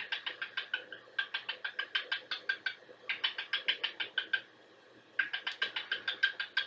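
A pet bird chirping in quick runs of short, sharp notes, about nine a second. There are four runs with brief pauses between them.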